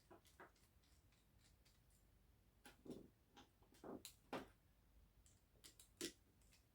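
Faint clicks and taps of small plastic parts being handled on a stripped-down Xbox One S controller, a few scattered knocks with the loudest around the middle and near the end.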